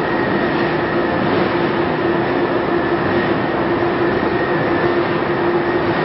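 Carbonization furnace plant running under test: a loud, steady machine noise with a constant mid-pitched hum and a fainter steady high tone.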